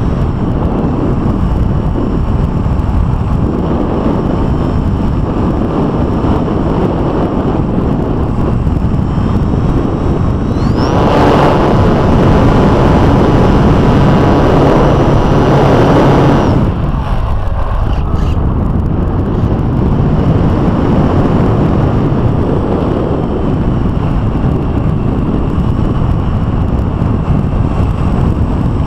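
Wind buffeting the on-board keychain camera's microphone on an electric RC foam airplane in flight, mixed with the whine of its electric motor and propeller. From about 11 to 16 seconds, while the plane dives, it grows louder with a steady whine, then falls back.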